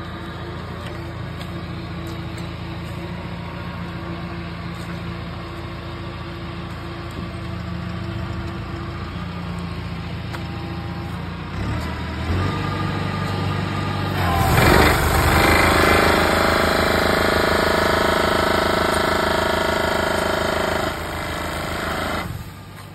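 Tractor engine running steadily, then revving up about halfway through as a tractor-mounted olive tree shaker goes to work. The shaker runs loudly for about seven seconds, vibrating the tree, and stops shortly before the end.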